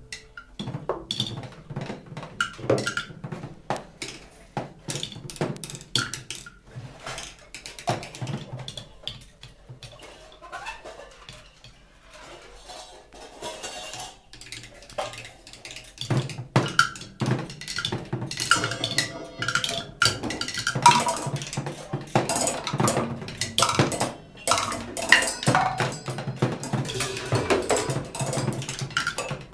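Free-improvised percussion by two drummers: a dense, irregular scatter of strikes on drums and small percussion with no steady beat. It thins out and grows quieter in the first half, then becomes busier and louder from about halfway through.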